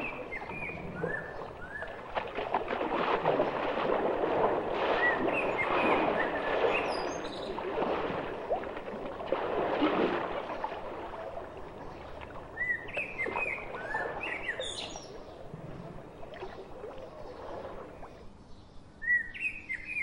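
Birds chirping in short bursts, over a louder stretch of rustling, crackling noise in the first half.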